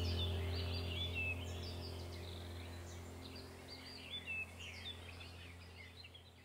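Many small birds chirping and twittering over a steady low hum, the whole sound fading out gradually.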